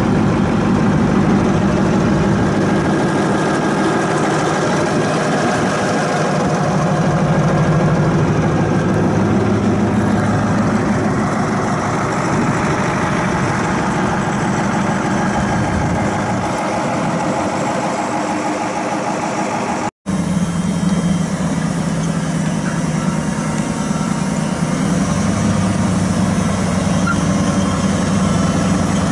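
CAT 613C paddle wheel scraper's V8 Caterpillar 3208 turbo diesel running steadily. The sound drops out for an instant about twenty seconds in, then the engine carries on.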